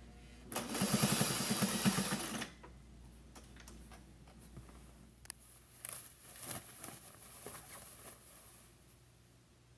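Vintage sewing machine running a straight stitch in one burst of about two seconds, with a fast, even stitching rhythm, then stopping. A few faint clicks follow.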